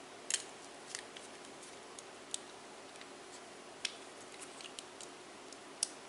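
Plastic clicking and creaking as the white plastic switch housing of a mini desk fan is pried and worked loose by hand: about eight short, sharp clicks at irregular intervals.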